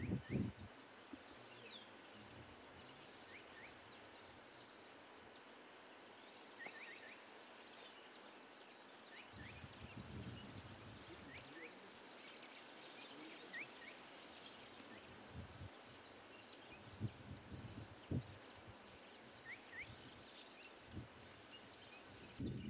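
Faint bush ambience with short bird chirps scattered throughout, and a few low rustles and thumps in the second half.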